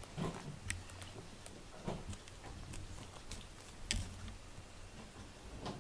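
Faint, scattered light taps and clicks, about six spread over several seconds, from movement on a wooden floor.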